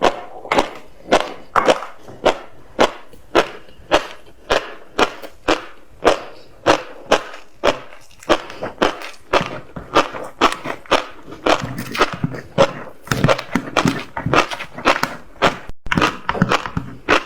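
Close-up chewing of tobiko (flying fish roe), the eggs crunching and popping in a steady rhythm of about two crunches a second, coming faster in the second half.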